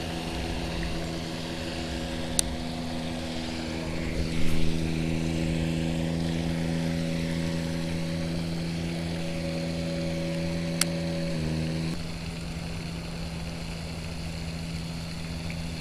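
A steady, even-pitched engine or motor hum that cuts off abruptly near the end, over a low rumble. There is a thump about four and a half seconds in, and two sharp clicks.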